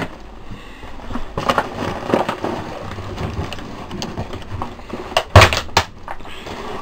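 Footsteps crunching and scuffing over debris, with scattered clicks and a loud cluster of crunches about five seconds in.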